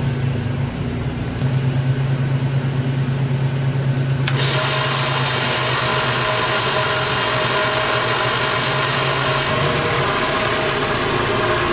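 Jet JWL-1236 wood lathe running under power: a steady motor hum, joined about four seconds in by a busier whirring with a steady high whine.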